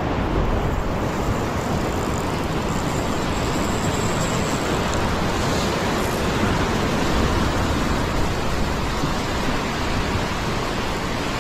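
Ocean surf surging and foaming over the rocks at the foot of the cliff, a steady rushing noise.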